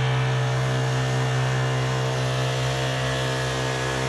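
Honda GX35 four-stroke engine on a small kayak outboard running steadily at high throttle, pushing the loaded boat along; the sound holds at an even pitch and level.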